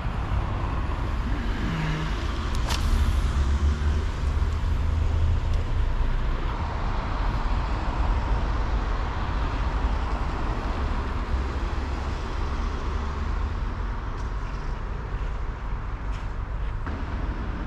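Steady rumble of road traffic from a nearby road, swelling a little partway through, with a single sharp click about three seconds in.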